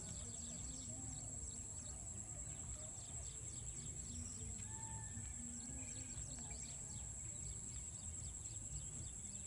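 Outdoor ambience: birds chirping in many short falling notes over a steady high whine and a low rumble of wind and background noise. No elephant calls stand out.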